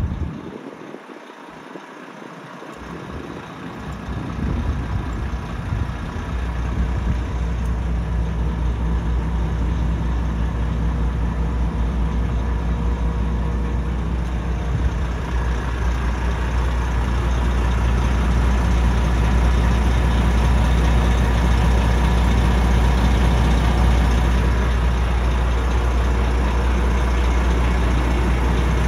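Volvo FM410's 13-litre six-cylinder diesel idling with a steady low hum. It comes in a few seconds in and grows louder over the next dozen seconds, then holds even.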